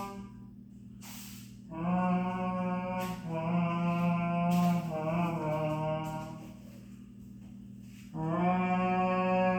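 Long, held low brass-like notes, three in a row, each lasting a second or more, with short breaths in the quieter gaps between them; one wavers in pitch near the middle.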